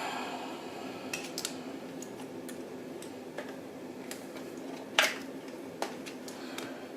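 Small plastic accessory and its packaging being handled: scattered light clicks and knocks, the loudest about five seconds in, over a faint steady hum.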